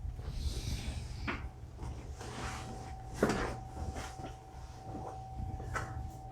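Treatment table knocking and creaking as a patient shifts and turns face down on it: three short knocks, the loudest about three seconds in, with rustling between them.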